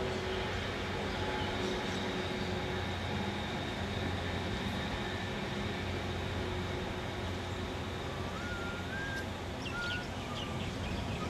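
Steady roar of ocean surf and wind. Near the end, a few short high notes glide upward like whistling.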